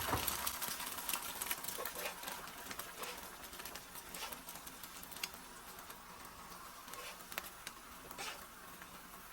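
Eggs frying on a hot ceramic-top electric griddle: a light sizzle with scattered small pops and crackles, easing off over the first few seconds.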